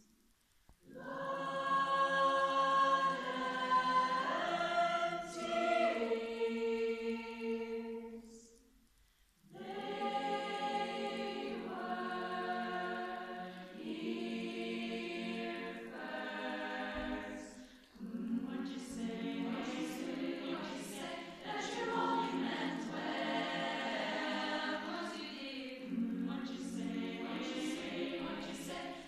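Women's choir singing in several parts, in phrases separated by brief breaks about a second in, around nine seconds and around eighteen seconds.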